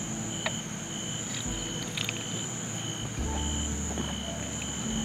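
Night insects chirping: a steady high trill with a lower chirp pulsing on and off about twice a second.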